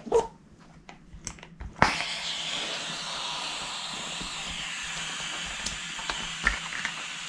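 Self-inflating camping mattress drawing in air through its opened valve. A few small clicks are followed, about two seconds in, by a sudden hiss that keeps going steadily.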